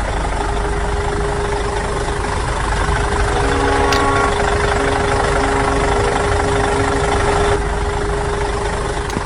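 Toy tractor's engine sound running steadily like an idling engine, with a constant hum and a lower tone that comes and goes. It eases off slightly near the end.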